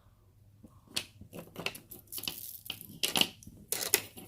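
Jewelry being handled: a red jasper bead necklace and its sterling silver clasp give small, sharp clicks and rustles, beginning about a second in and coming thickest near the end.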